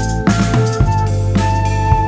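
Background music with a steady drum beat and sustained synth or keyboard notes.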